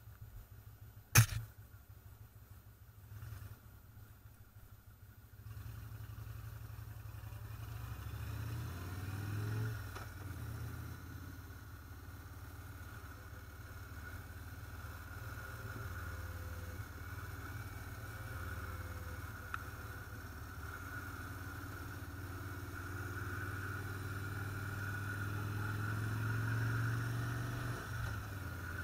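Motorcycle engine and road noise heard while riding, with one sharp click about a second in. The engine picks up revs around eight to ten seconds in, then runs steadily and grows a little louder near the end.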